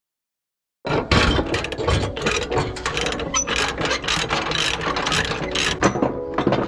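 Silence, then about a second in a ratchet tie-down starts being worked, a dense run of rapid metallic ratcheting clicks and rattles.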